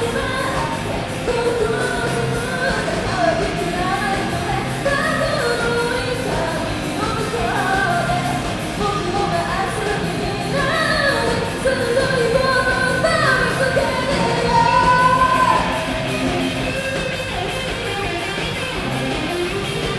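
Rock song with a lead vocal sung over a full band, electric guitar among it.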